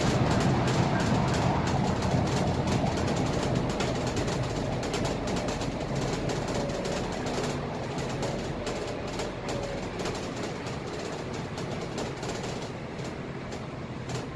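Cabin noise of a Scania K320IA city bus under way: engine and road rumble with steady rattling of interior fittings, fading gradually as the bus slows for traffic ahead.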